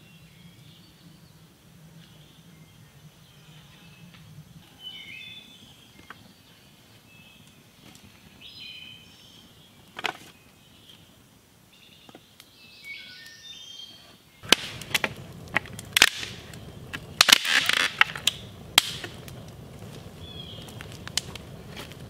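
Birds chirping over a quiet background. About two-thirds of the way in, a burning pile of scrap lumber comes in as a steady rush with loud, sharp crackles and pops.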